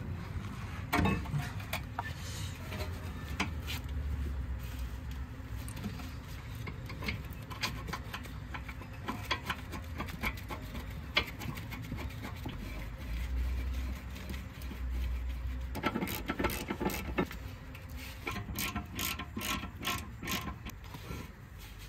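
Hand ratchet wrench clicking as it runs in a brake caliper bracket bolt, with small metal tool-handling clicks. The ratchet clicks come in quick runs, thickest in the last few seconds.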